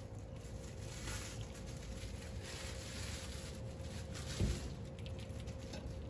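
Plastic bread bag rustling and crinkling in several soft bouts as sweet bread is lifted out of it, with a short dull thump about four and a half seconds in, over a faint steady hum.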